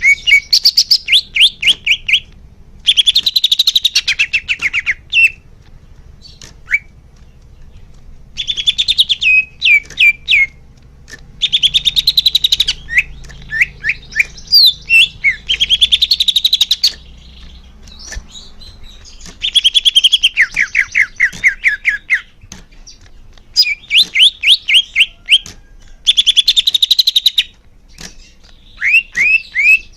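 Greater green leafbird (cucak hijau) singing loudly in repeated phrases of rapid chirping notes, each phrase lasting a second or two, with short pauses between them.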